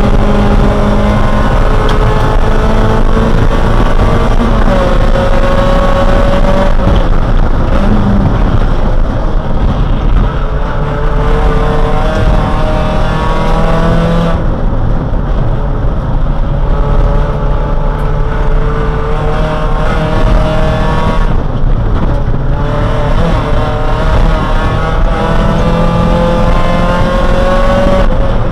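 In-cabin sound of a Neon race car's four-cylinder engine at racing speed. The engine note climbs steadily, then drops back three times as the driver shifts or lifts for corners, over heavy road and wind rumble.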